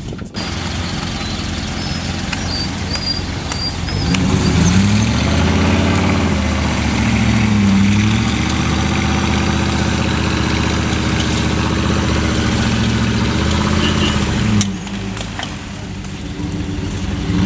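Off-road SUV engine revving hard under load while the vehicle is pulled on a tow line up out of a creek. Its pitch rises and falls several times, and the revving drops back near the end.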